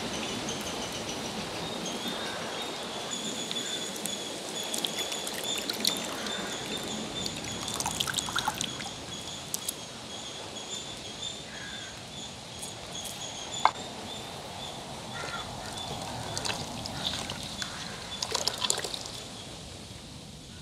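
Water trickling and pouring, with scattered clicks and knocks and one sharp click about two-thirds of the way through. A steady high trill carries on in the background for much of the time.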